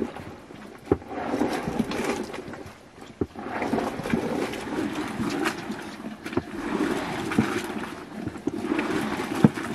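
A tall wooden plunger churn being worked by hand: liquid sloshing in long swishing strokes, with a sharp knock about once a second as the plunger strikes.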